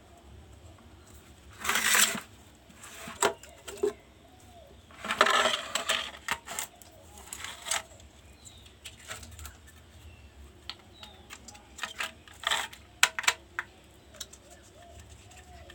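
Plastic and metal parts of an opened induction cooker being handled: two short scraping rustles, then a run of sharp clicks and light rattles.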